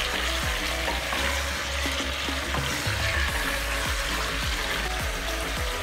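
Chopped vegetables sizzling as they are sautéed in hot oil in a pressure cooker, stirred with a wooden spatula that scrapes the pot now and then.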